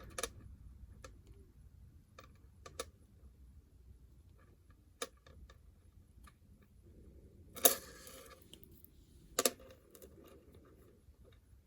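Small metal clicks and clinks of jewelry tools working a metal jump ring, scattered and irregular, with two louder clinks in the second half.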